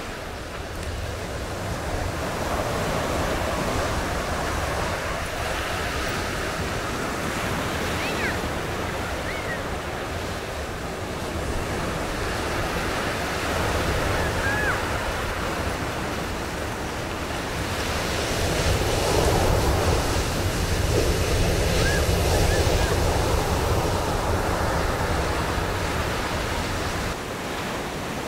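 Ocean surf breaking on a sandy beach, a steady wash of waves that swells louder and eases off as each set rolls in.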